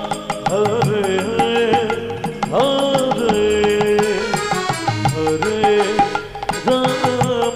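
Instrumental interlude of Bengali kirtan music: a Roland XPS-10 keyboard plays a melody of held notes over strokes of a khol drum and steady percussion beats.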